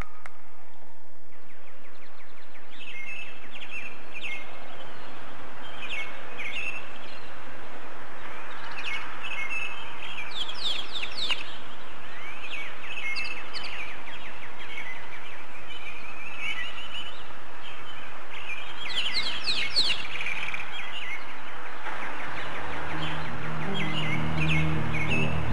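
Recorded birdsong, many short chirps and trills over a steady hiss, played over an arena's sound system as the opening of the show's soundtrack. Low music notes come in near the end.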